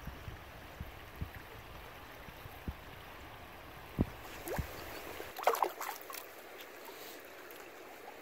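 River water flowing steadily, with low thumps of wind on the microphone through the first five seconds. A few short splashing sounds come about five and a half seconds in.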